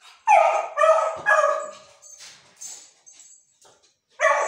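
Beagle puppy barking up at food it wants: three loud, quick pitched barks in the first second and a half, then another near the end.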